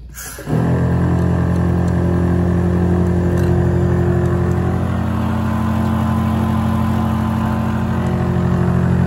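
Portable self-contained hot and cold water sink's electric pump switching on about half a second in as the tap is opened, then a loud, steady buzzing. A thin stream of water runs from the faucet into the stainless steel basin.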